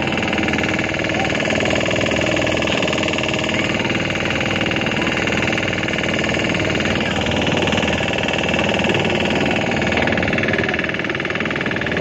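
Motorboat engine running steadily at an even speed.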